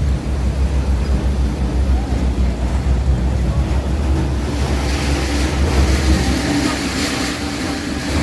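Hitech-SH10T industrial textile-waste shredding line running under load: a steady low rumble. About halfway through the rumble eases and a harsher hissing rattle comes up.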